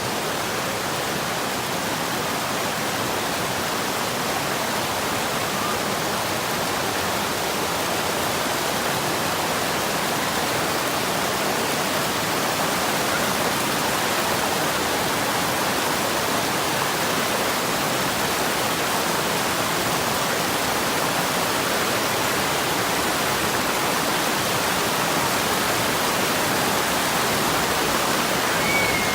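Mountain stream rushing steadily over rocks, close by.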